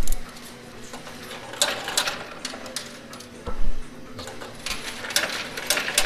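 Coin pusher machine running: coins clatter and clink as they drop onto the sliding pusher shelf, over the machine's steady mechanical hum, with a louder knock a little over halfway.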